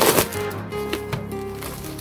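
Background music with steady held notes, and a short loud crinkle of a clear plastic bag right at the start as wooden kit sheets are pulled out of it.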